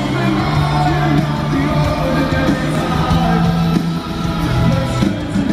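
Live rock band playing at full volume through an arena sound system, with a male lead singer singing into a handheld microphone over sustained bass notes.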